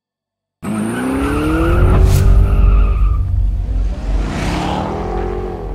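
Car sound effect for a logo sting: after a brief silence, an engine revs with climbing pitch, with a sharp crack about two seconds in. A rushing hiss follows, then a second rise in revs near the end.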